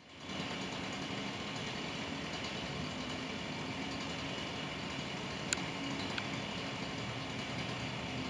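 Steady low machine hum with a hiss. Two short sharp clicks come past the middle, under a second apart.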